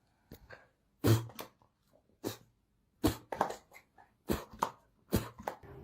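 A dog making a series of short, sharp vocal sounds, some in quick pairs, with silent gaps between them.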